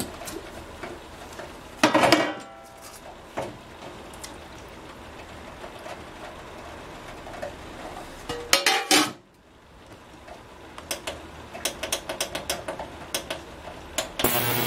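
Stainless steel parts of an ultrasonic cleaner and a small steel cup clanking: a ringing metal clank about two seconds in and another near the middle as the part goes into the tank and the lid is set on. Then a run of light clicks from the control buttons, and a loud steady buzz starts right at the end as the ultrasonic cleaner switches on.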